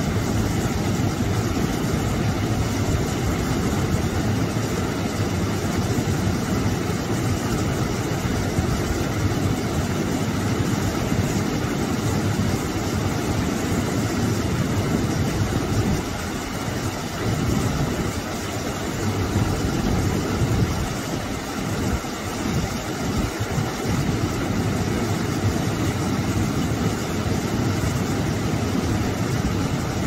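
Small waterfall pouring over a rock ledge into a shallow pool: a steady, deep rush and splash of falling water, a little softer for a few seconds past the middle.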